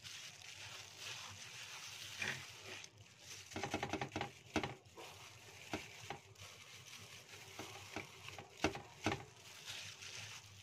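A plastic-gloved hand rubbing spice paste into a raw tilapia on a plate: the plastic crinkles and the wet paste squishes in irregular bursts, the loudest about halfway through and twice more near the end.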